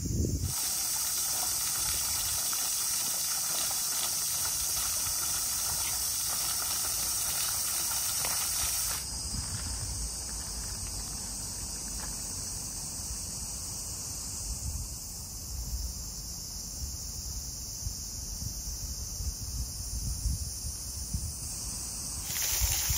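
Cicadas droning in a steady high hiss, the drone changing abruptly about nine seconds in and again near the end.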